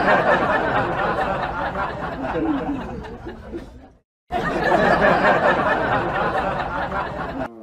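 A crowd laughing and chattering, many voices at once. It fades out about halfway through, stops briefly, then comes back at full level and cuts off near the end.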